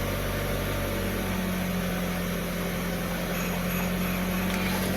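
2011 Kia Rio engine idling steadily after starting, now running again with its repaired engine control module (ECU), whose burnt capacitor had kept the car from starting.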